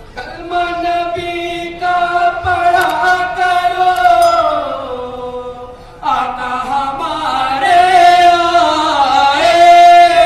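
Male voices chanting an Urdu naat in long held notes, amplified through a microphone. The melody slides down, and a new phrase begins about six seconds in.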